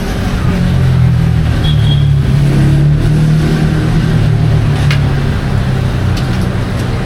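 A motor vehicle's engine running close by as a steady low hum, growing louder about a second in and easing off near the end.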